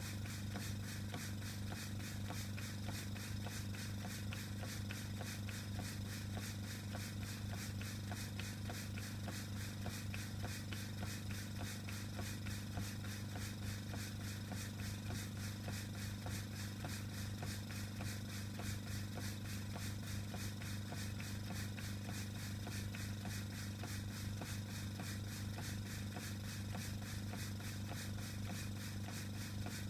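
Stuart No. 9 model steam engine running on compressed air, its exhaust giving a rapid, even beat over the steady hum of the airbrush compressor feeding it.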